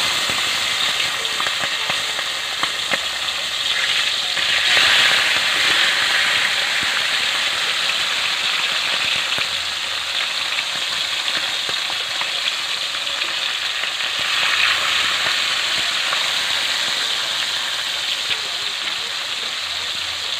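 Whole needlefish (balo) frying in hot oil in a wok: a steady sizzle with scattered small pops, swelling briefly about four seconds in and again around fourteen seconds.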